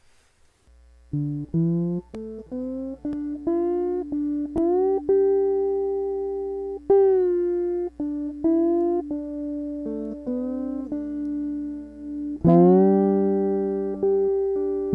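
Three-string cigar box guitar tuned D-A-D, heard straight from its magnetic pickup, playing a slow line of plucked notes that slide up and down in pitch, some left ringing for several seconds. A louder struck note comes about twelve seconds in, and a steady low electrical hum sits underneath.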